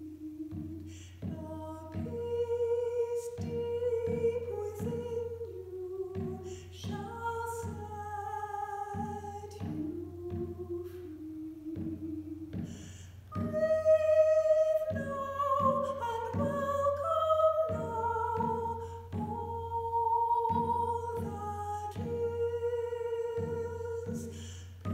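A woman singing a chant while beating a hand-held frame drum with a beater in a steady beat; her voice grows louder about halfway through.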